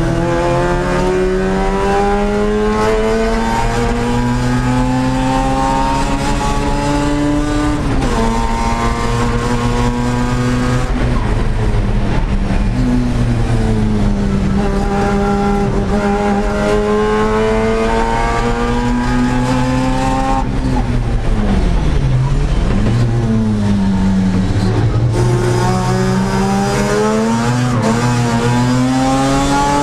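The 13B rotary engine of a 1982 Mazda RX-7 race car, heard from inside the stripped cabin, running hard at full throttle. Its pitch climbs as the car accelerates and drops sharply at upshifts about 8 and 11 seconds in. It climbs again, then falls and dips around two-thirds of the way through before rising once more.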